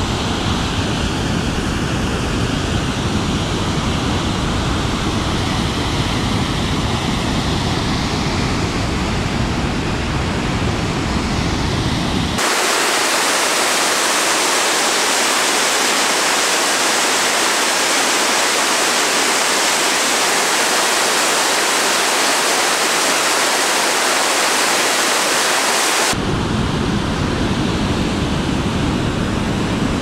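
Steady roar of a waterfall in flood, high water from heavy rain pouring over the falls. About twelve seconds in the sound turns suddenly to a brighter hiss without the low rumble, and it returns to the fuller roar near the end.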